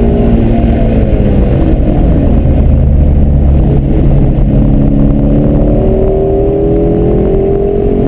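Ford Shelby GT350's 5.2-litre flat-plane-crank V8 heard from inside the cabin under hard track driving. Its note falls in pitch over the first couple of seconds as the car slows, holds lower, then climbs steadily near the end as it accelerates again.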